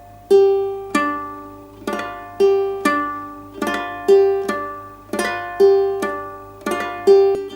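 Ukulele played clawhammer style at a slow, steady pace: a repeating tap, stroke, pluck pattern of struck melody notes and brushed chords, with a new attack about every half second, each left to ring.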